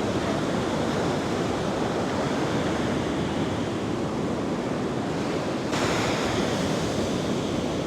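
Big ocean waves breaking and rushing in a steady roar of surf. About six seconds in, a brighter, hissier surge of breaking water starts sharply.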